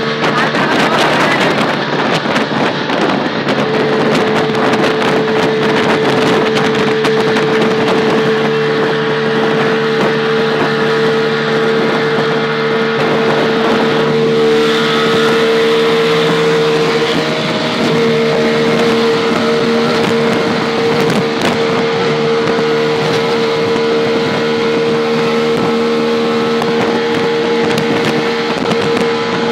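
Auto rickshaw engine running steadily at speed, heard from on board, a constant drone over road and wind noise. The engine note shifts slightly a little past halfway.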